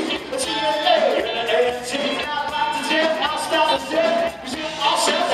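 Live rock band playing a song: electric guitars, drum kit and keyboards with male singing, the drums keeping a steady beat of about two strokes a second.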